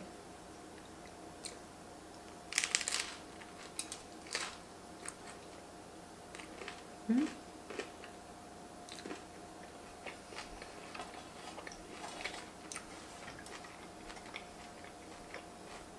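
Close-miked chewing of pizza crust spread with Nutella and topped with strawberries: scattered soft crunches and mouth clicks, busiest about two and a half seconds in, with a short rising hum about seven seconds in.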